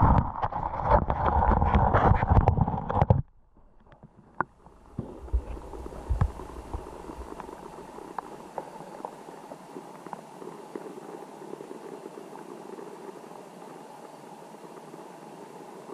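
Underwater river sound picked up by a submerged camera: loud churning water and knocking for about three seconds, cutting off suddenly, then a steady hiss with scattered small clicks.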